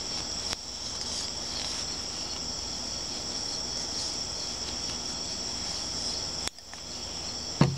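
Steady, high-pitched chorus of insects, such as crickets, droning without pause. A short low thump from handling comes near the end.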